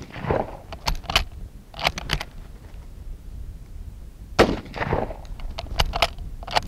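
M1886 Lebel rifle in 8x50R firing a single loud shot about four seconds in, its echo trailing off for about a second. Before and after the shot the turn-bolt is worked, giving short metallic clacks, and the echo of an earlier shot is still dying away at the start.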